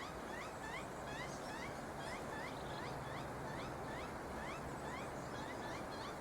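Magpie chick begging to be fed: a rasping "rank, rank, rank" call repeated about two to three times a second, each call rising in pitch.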